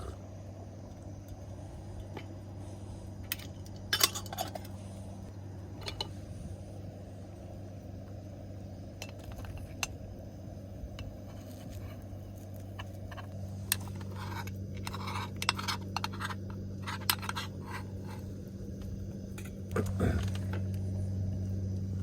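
Scattered light clinks and clicks of small hard items being handled, over a steady low hum.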